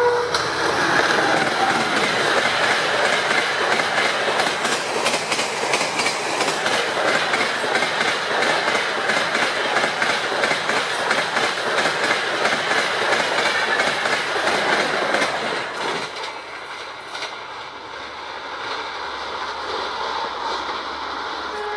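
Coaches of an express passenger train passing close by at about 130 km/h: a loud rush of noise with rapid, regular clickety-clack of wheels over the rail joints. About three-quarters of the way in, this drops suddenly to a quieter, more distant train rumble.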